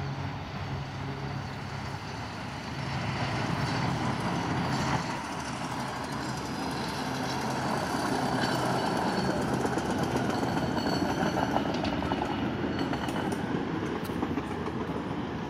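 Hi-rail pickup truck running along the railroad track, its tires and steel guide wheels rolling on the rails with the engine under it. The rumble grows louder as the truck comes closer and passes.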